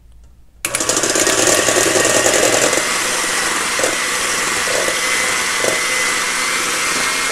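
Electric hand mixer switching on about half a second in and running steadily at top speed, its beaters whipping egg whites in a stainless steel bowl.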